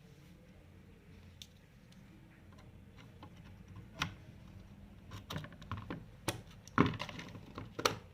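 Quiet room hum, then a series of sharp clicks and knocks from hardware packaging being handled, growing busier with the loudest knocks near the end.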